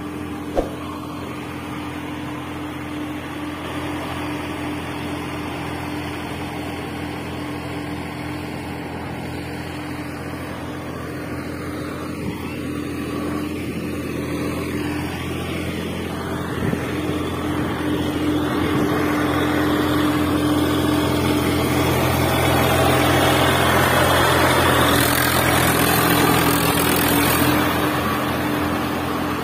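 A steady mechanical hum that holds one pitch throughout, with a single click just after the start. In the last few seconds a dry rustle grows louder as chaff slides out of a toy loader's bucket into a toy truck.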